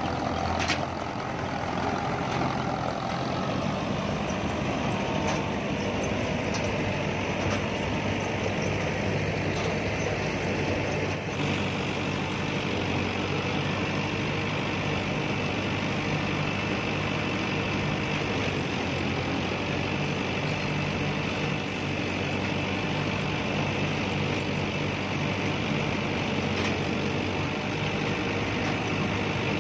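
Combine harvester's engine running steadily while its header reel, cutter bar and auger work through standing paddy rice, with a faint whine falling in pitch over the first few seconds.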